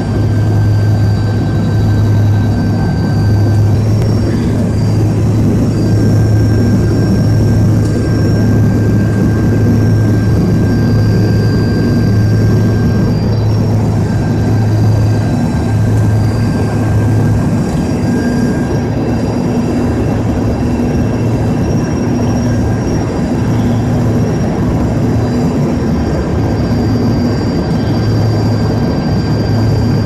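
Airliner cabin noise in flight: the steady, loud drone of the jet engines and rushing air, with a constant low hum underneath.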